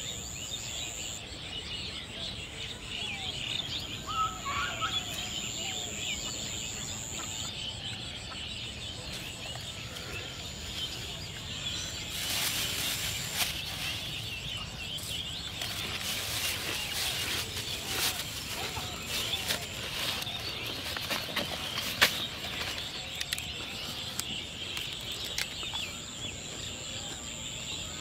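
Rural outdoor ambience: a dense chorus of birds chirping throughout, with a steady high-pitched whine. From about the middle there is rustling and crinkling of plastic, and a single sharp click about three quarters of the way in.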